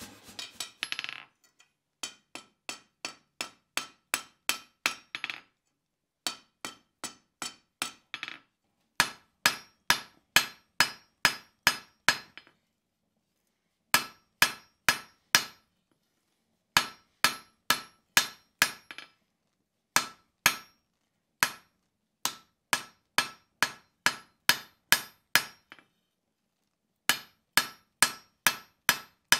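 Hand hammer striking a hot round bar on an anvil while forging. The blows come in runs of about five to ten, roughly three a second, with short pauses between runs, and each blow gives a bright metallic ring.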